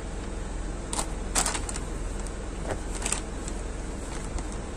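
Cardboard smartphone box being handled and its lid lifted off: a few short scrapes and taps of card against card and fingers, over a steady low hum.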